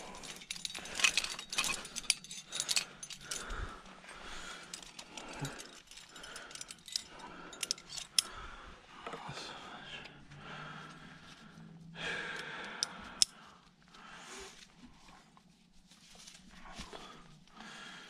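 Climbing hardware clinking and jangling: carabiners and other metal gear knocked together and clipped while a belay anchor is built. The clicks come in clusters, thickest near the start, around the middle and again about two-thirds of the way through.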